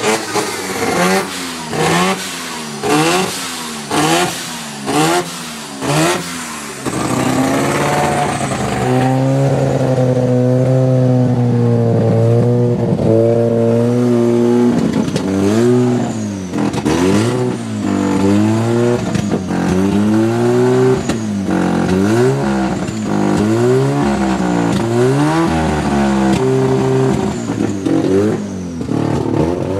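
Mazda RX-7 FC's 13B two-rotor rotary engine running from a cold start, revved in quick blips about once a second. It then settles to a steadier, slightly wavering held speed for several seconds before the repeated blips resume.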